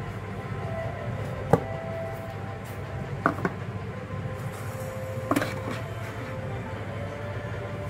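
Cardboard earbud box being handled and opened: a sharp tap about a second and a half in, two quick knocks a little past three seconds, and another knock with a brief rustle around five and a half seconds. Under it runs a steady low background rumble.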